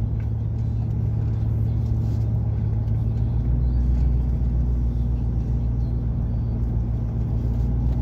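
Pickup truck's exhaust through an 8-inch Cherry Bomb glasspack muffler, a steady low rumble heard inside the cab while cruising slowly. The rumble deepens and strengthens about three seconds in.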